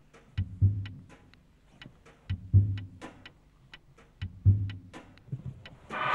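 Sparse, clock-like percussion soundtrack: a low thud with a cluster of sharp ticks, repeating evenly about every two seconds. Right at the end a chord of held tones swells in.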